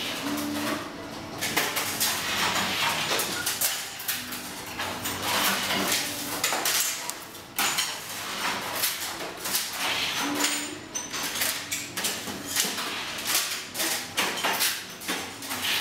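Workshop clatter: irregular knocks, taps and rattles of items being handled at the benches, with a brief low machine hum recurring about every five seconds.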